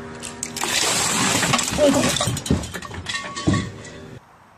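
Ice water from a large cooking pot pouring over a person's head and splashing down for about three and a half seconds, cutting off suddenly near the end.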